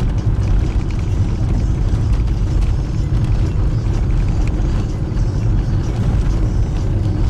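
Steady low rumble of car engine and tyre road noise, heard from inside the moving car's cabin.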